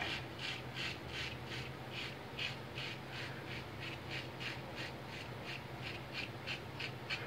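Ever Ready lather-catcher single-edge safety razor scraping through lathered stubble, in a steady run of short strokes, about two to three a second.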